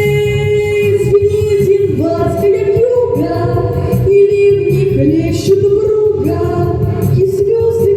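Song with a sung melody over an instrumental backing track.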